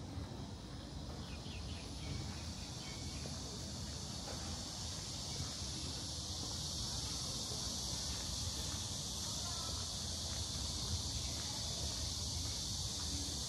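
Steady chorus of insects, a high even buzz that swells over the first few seconds and then holds, over a low rumble.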